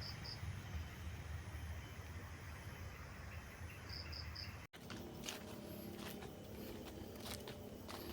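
Outdoor background with a steady low rumble and a short, high three-note chirp heard twice. After a brief dropout about halfway through, rustling and crackling, like steps through undergrowth, take over.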